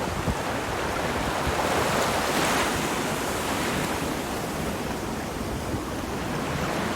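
Ocean waves breaking and washing on the shore, with one wave cresting louder about two and a half seconds in, and wind buffeting the microphone.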